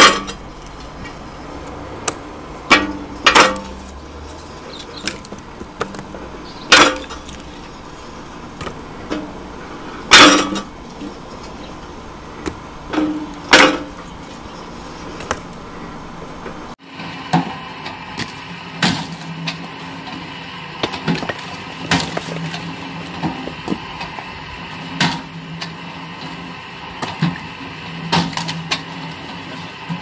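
Homemade electric log splitter splitting firewood: a loud, sharp crack of splitting wood every few seconds. About 17 s in, this gives way to the steady hum of a motor-driven mechanical log splitter running, with frequent smaller knocks of its ram and falling split wood.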